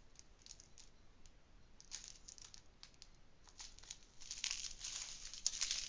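Small plastic bags of diamond-painting drills being handled and sorted, giving light crinkling rustles that come more often and louder from about four seconds in.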